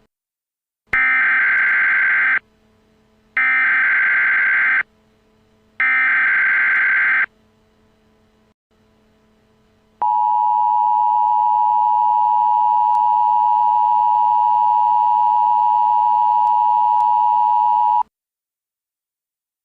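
Emergency Alert System tones: three bursts of SAME header data, a buzzing warble each about a second and a half long, then after a short gap the two-tone attention signal, a steady harsh dual tone held for about eight seconds before it cuts off.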